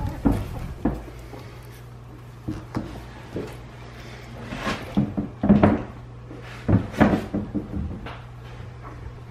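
Irregular knocks and bumps of puppies being handled in a wooden whelping box, the loudest cluster past the middle, over a low steady hum.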